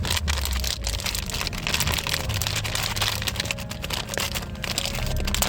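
Crinkling and rustling of plastic packaging as the squishies are handled and unwrapped: a dense, irregular crackle over a steady low rumble.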